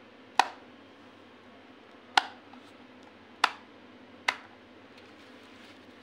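Four sharp plastic clicks spread over about four seconds, from the rotary control knob of an Orpat fan heater being turned through its click-stop settings.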